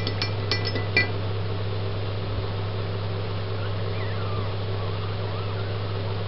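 Steady low hum, with a few sharp clinks in the first second. Later come faint, high, wavering squeaks from a newborn puppy being rubbed dry in a towel.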